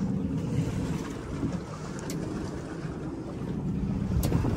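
Center-console motorboat under way: a steady low engine rumble with wind buffeting the microphone and water rushing past the hull. A sharp tick near the end.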